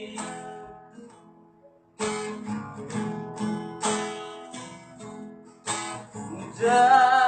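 Acoustic guitar strummed in an instrumental break of a song. A chord rings out and fades to near quiet, then steady strumming starts about two seconds in, roughly two strums a second, and grows louder near the end.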